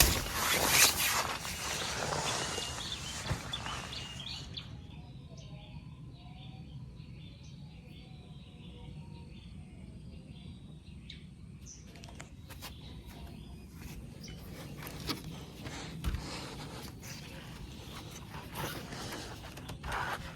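Rustling and handling noise with scattered clicks. It quietens after about four seconds to faint, repeated high chirping calls of night creatures, then the rustling returns about twelve seconds in.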